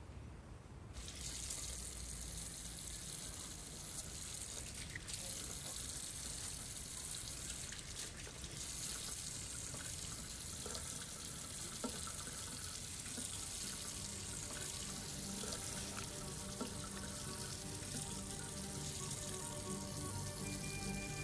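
Water running steadily from a tap into a sink, starting about a second in. Faint sustained music notes come in about halfway and grow near the end.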